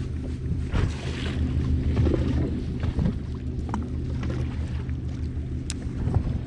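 A fishing boat's motor running steadily, with water splashing against the hull and wind on the microphone.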